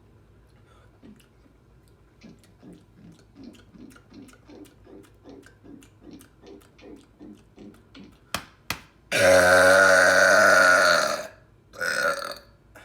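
A person gulping soda in a steady run of swallows, about three a second. Then come two sharp clicks and a loud, long burp of about two seconds, followed by a shorter second burp.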